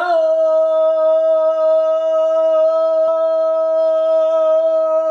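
A man's voice holding one long sung note at a steady pitch, drawing out the word "Yao" as a chant.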